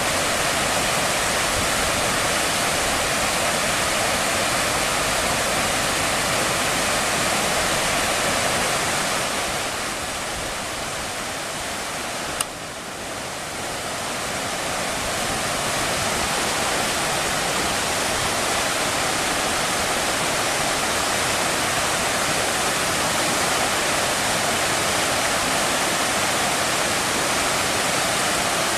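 A swollen, flood-high river rushing over a weir and through turbulent rapids: a loud, steady rush of water. It dips a little quieter near the middle, with a single click.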